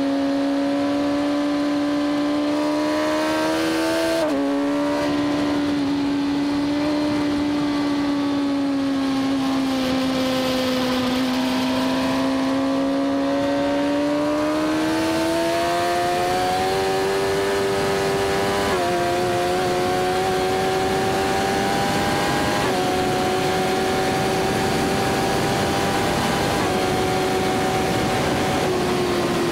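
Suzuki GSX-R1000's inline-four engine running hard at high revs, its pitch climbing slowly with sudden dips at upshifts about four seconds in and twice more past the middle. Wind rushes over the bike-mounted camera throughout.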